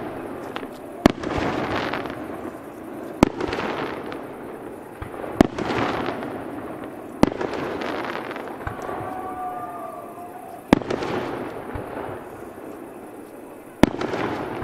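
Aerial firework shells bursting: six sharp bangs two to three seconds apart, each followed by a long echoing tail that dies away.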